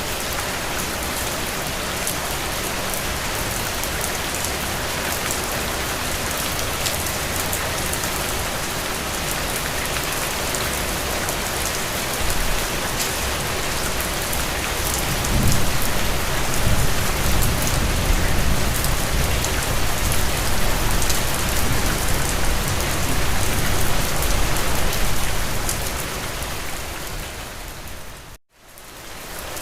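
Steady rain falling and pattering on a surface, with a low rumble swelling through the middle. Near the end the sound dips out abruptly for a moment, then comes back.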